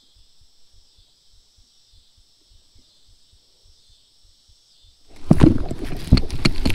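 Baitcasting reel cranked at a steady pace, its handle giving soft knocks about three to four times a second under a steady high hiss. About five seconds in comes a sudden loud burst of splashing and knocking as a big bass hits the crankbait and the angler swings a hookset that fails to hook up.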